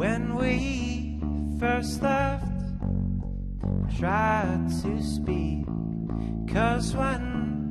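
Live indie folk band playing: electric, acoustic and bass guitars under a voice singing short phrases about every two seconds.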